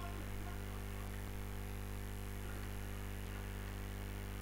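Steady low electrical mains hum and buzz, with a few faint clicks.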